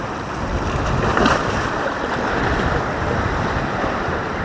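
Small sea waves washing and splashing against shore rocks, with wind on the microphone; the wash swells a little louder about a second in.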